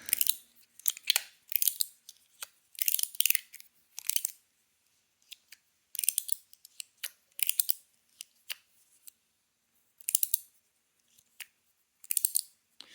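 TIER I Guandan Mini Slider fidget being slid and flicked by hand: short sliding scrapes and sharp clicks in small clusters, with quiet gaps between.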